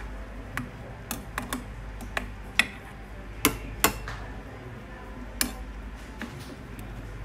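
Metal ladle clinking against the side of a stainless steel soup pot as the soup is stirred: irregular sharp clinks, about ten, the loudest around the middle.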